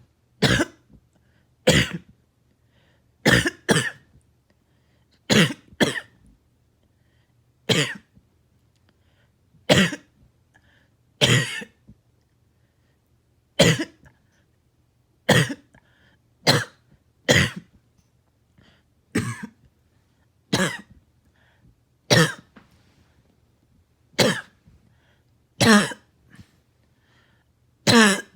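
A long run of short, harsh coughs, one every one to two seconds, some coming in quick pairs.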